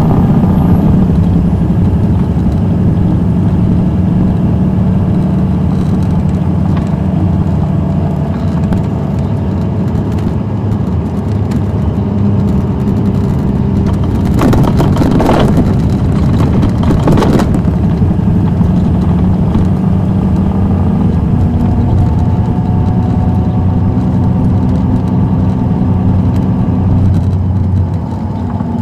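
Caterpillar C13 ACERT diesel of a 2007 MCI D4500CL coach running under way, heard from inside the bus. Its pitch climbs in the second half and drops near the end. Two short bursts of hiss cut across it about halfway through.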